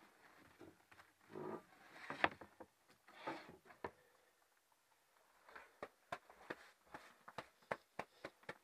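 Faint rustling and handling noise, then a run of short sharp clicks and knocks in the second half, several close together, as the snowboard and gear are moved about against a wooden wall.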